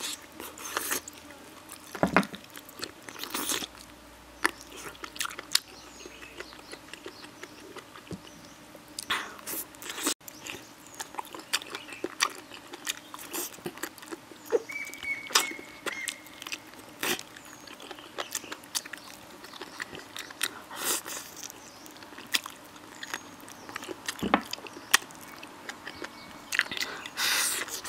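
A person chewing and biting pork trotters stewed with bamboo shoots, close up: a run of short, wet mouth clicks and smacks, a few of them louder.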